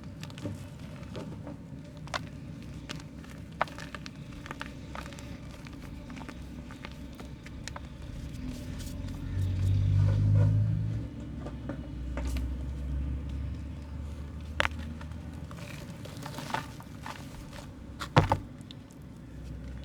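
Soft mud being crumbled by hand: scattered small crackles and snaps, with a low rumble swelling about halfway through and a sharper crack near the end.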